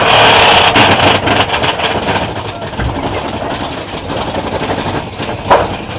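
Mine-train roller coaster running along its track with a steady noise, loudest in the first second, and a sharp clank about five and a half seconds in.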